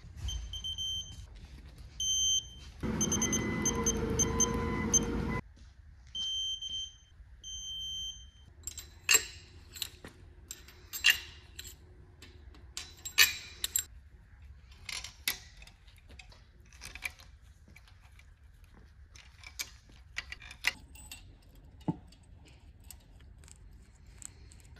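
Digital torque wrench beeping in short tones as cylinder-head stud nuts are tightened, going to a fast beeping with a buzz for a couple of seconds when the set torque is reached, then beeping again. From about 9 s, light metal clinks as steel pushrods are handled and dropped into the engine head.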